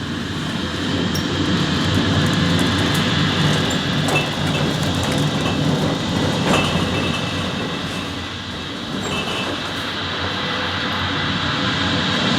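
A stage sound effect of a rough sea, a loud steady rumble of wind and waves, rising in over the first couple of seconds and then holding.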